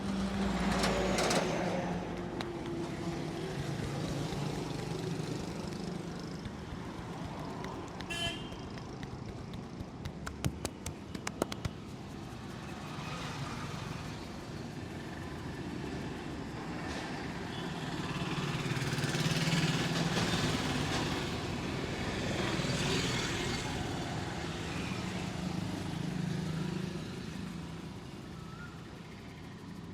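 Street traffic running steadily, swelling for a few seconds in the middle, with a vehicle horn tooting briefly. About ten seconds in comes a quick run of sharp clicks or taps.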